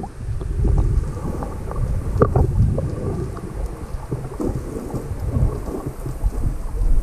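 Underwater sound on a submerged GoPro Hero 5 Black's microphone: a loud, muffled low rumble of moving water with scattered pops and crackles as the swimmer moves through the water.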